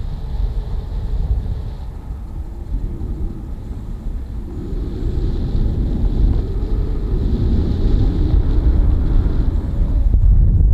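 Wind rushing over the microphone in flight: a steady low buffeting rumble that swells and eases, growing stronger in the second half.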